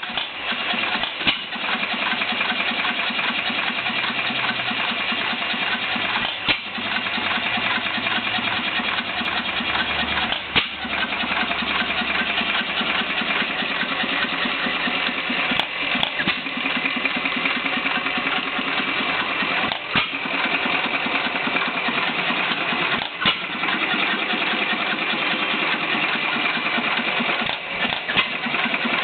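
Myrick Machine Co. 4 hp oil-field gas engine of about 1914 running, a fast, steady mechanical clatter with a sharper, louder bang every few seconds.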